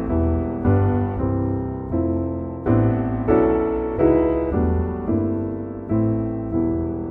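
Piano playing an even succession of chords, one struck about every two-thirds of a second, each ringing and fading before the next.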